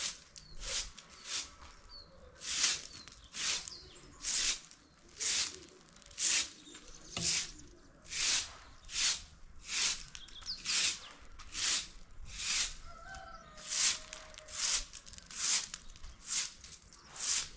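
Hand broom sweeping leaves and debris across brick paving: a steady run of short swishing strokes, roughly two a second.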